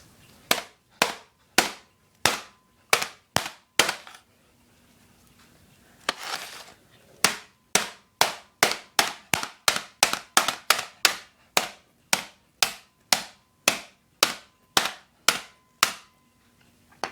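Hammer striking a laptop's plastic bottom case again and again to force it open: about seven blows, a short break, then a faster run of some twenty-five blows at roughly two to three a second.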